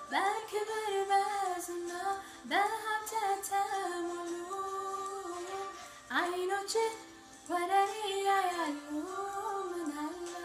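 A woman singing a mezmur, an Ethiopian Christian hymn, in about four phrases that each open with an upward swoop and then hold the note, over a steady held backing tone.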